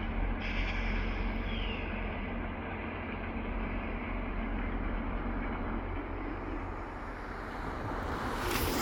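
VIA Rail passenger train rolling past: a steady low rumble of the cars and wheels on the track, with a broad rush of noise swelling near the end.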